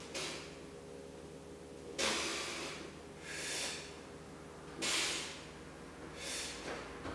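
A lifter's forceful breathing during close-grip bench press reps: a series of hissing breaths, one every second or two, some cut off sharply and others swelling more gently.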